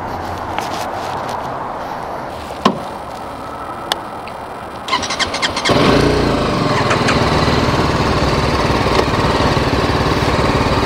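BMW G 310 GS single-cylinder motorcycle engine being started: after two sharp clicks, the electric starter cranks for under a second about five seconds in, and the engine catches and runs steadily.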